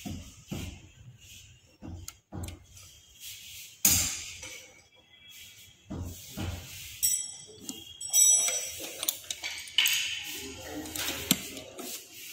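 Metal gearbox parts clicking, knocking and clinking as the reverse-gear shift lever is worked into place by hand on an opened Maruti WagonR manual gearbox, with a few sharper knocks and some short metallic pings in the second half.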